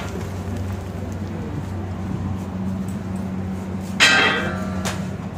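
Steady low machine hum in a commercial kitchen, broken about four seconds in by a sharp metallic clank that rings briefly.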